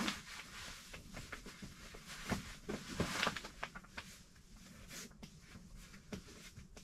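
Rustling and creaking of a rolled-up self-inflating sleeping pad and camp cot under a kneeling person's weight, with scattered light clicks, as the last air is pressed out of the pad.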